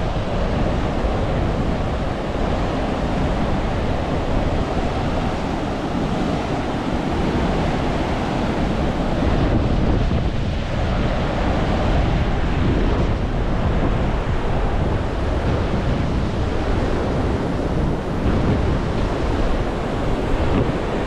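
Steady, loud rush of falling water from a waterfall, with wind buffeting the microphone.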